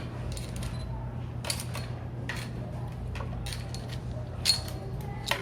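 Light clinks and taps of utensils and dishes while ingredients are added to a cooking pot, the sharpest about four and a half seconds in, over a steady low hum.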